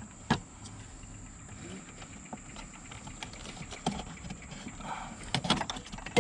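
Scattered clicks and knocks of plastic and rubber air-intake parts being handled as a new mass airflow sensor and intake boot are worked into place, with a short cluster of knocks near the end.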